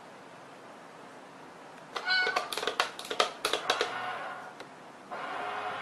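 A domestic cat meowing about two seconds in, amid a quick run of sharp clicks, with another drawn-out call starting near the end.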